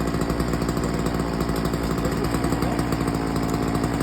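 Chainsaw running steadily, its engine holding an even speed.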